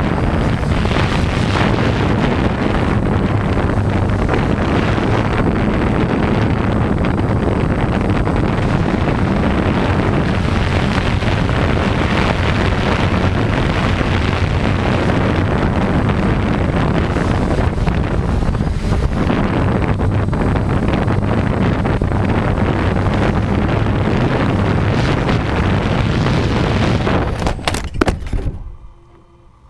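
Small quadcopter's motors and propellers running steadily, heard through its onboard camera with the propeller downwash buffeting the microphone. Near the end come a few knocks as it comes down on the floor, and then the motors stop.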